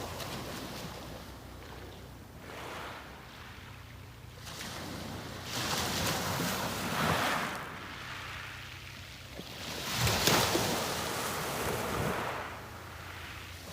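Sea waves breaking and washing up the beach, swelling and fading in surges every few seconds, the biggest about ten seconds in, over a steady low rumble.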